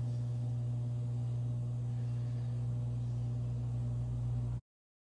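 Steady low hum with faint room hiss and no distinct crochet-hook clicks. The sound cuts out abruptly to total silence about four and a half seconds in.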